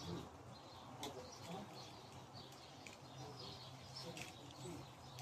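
Small songbirds chirping faintly and repeatedly in short high calls.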